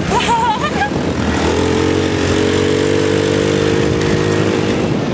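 Small off-road vehicle engine running over a steady rush of noise. It holds one level note from about a second and a half in until near the end. There is a brief high-pitched yell near the start.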